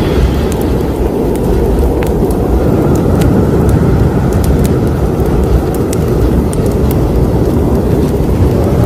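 Fireplace fire burning with a steady low roar, and sharp crackles and pops scattered irregularly through it.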